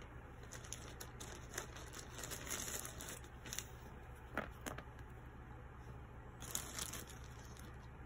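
Faint handling of plastic base-ten blocks on a whiteboard: green ten-rods set down with a few light clicks, two of them close together about halfway through, and brief scratchy rustles of a hand sliding on the board, over a low steady hum.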